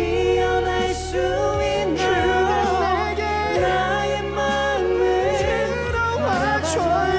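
A song sung live with instrumental backing: melodic vocals over a steady bass line.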